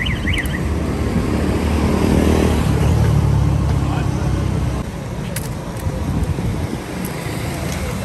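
Road traffic rumble with background voices. A vehicle's low rumble swells from about two seconds in and falls away at about five seconds.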